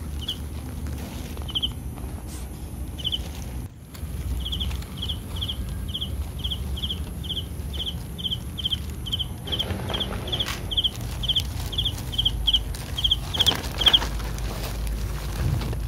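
An insect chirping: short high chirps, a few scattered at first, then a steady run of about three a second from about four seconds in, over a low rumble and some rustling.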